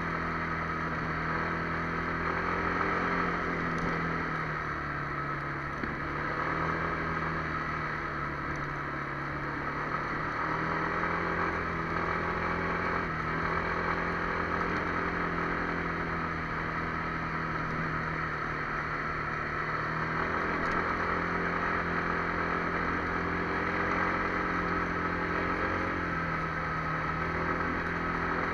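Kymco MXU 300 ATV engine running steadily under way, its pitch holding nearly level with small dips and rises now and then as the throttle changes.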